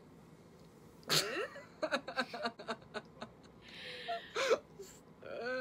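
Two young women laughing: a short burst of laughter about a second in, then scattered giggles and breathy snickers.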